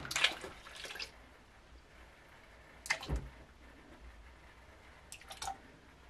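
Liquid fabric softener pouring from a bottle and splashing into the water in a washing machine's tub, then a soft knock about three seconds in and a few light clicks near the end.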